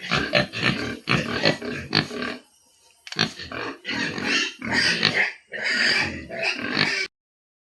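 Pigs calling in a rapid run of short, loud calls, with a brief pause about two and a half seconds in; the sound cuts off abruptly near the end.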